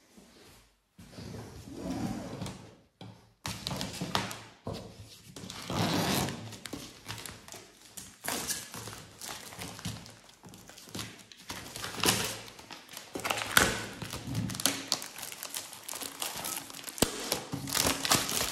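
Hands handling and unpacking items in plastic wrapping: crinkling plastic with irregular thunks and taps as things are moved and set down.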